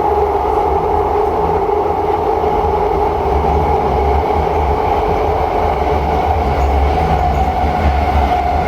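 SMRT C151B metro train running, heard from inside the carriage: a steady electric whine of two tones that sink slightly in pitch, over the continuous rumble of the wheels on the track.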